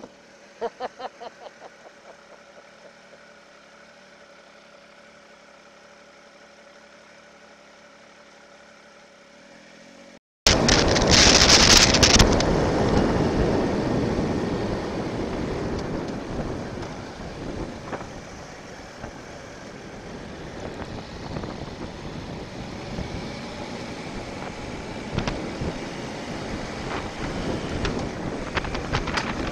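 Motorcycle engine idling with a steady hum, a few quick pulses near the start. After a cut about ten seconds in, the motorcycle is under way and heavy wind noise on the helmet microphone covers the engine, loudest just after the cut.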